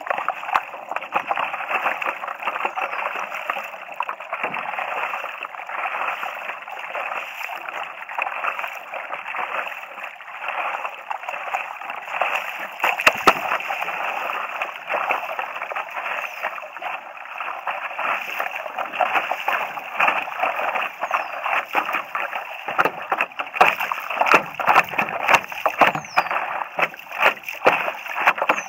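River water splashing and gurgling against a stand-up paddleboard right at a camera mounted at water level, as the board moves through choppy, faster-moving water. It is a steady splashy rush with sharper splashes coming thicker in the last few seconds.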